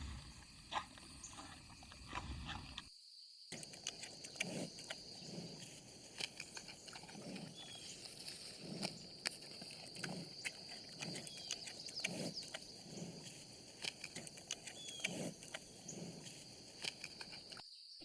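Giant panda chewing bamboo: soft rhythmic munching, about one chew a second, with sharp cracks and snaps of the stalks.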